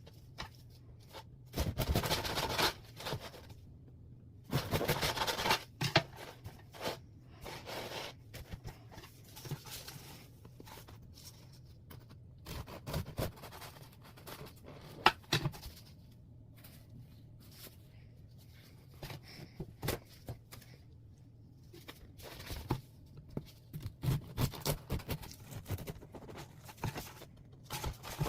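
Food packaging being handled and opened close to the microphone: bursts of rustling and tearing with scattered taps and clicks, heaviest twice in the first six seconds and again near the end, over a faint low hum.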